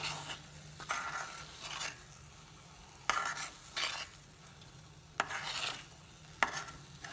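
Ladle stirring and scraping a thick almond-sugar burfi mixture against a pan as it is roasted in ghee: about six separate scraping strokes with quiet gaps between, a few of them ending in a sharp click of the ladle on the pan.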